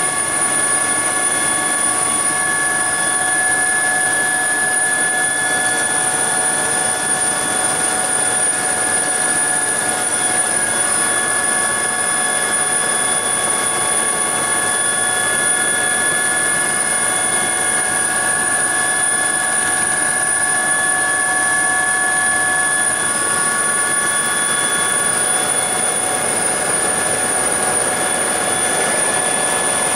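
Helicopter turbine and rotor heard from inside the cabin as it lifts off and climbs away: dense, loud, even engine and rotor noise with a steady high-pitched turbine whine over it.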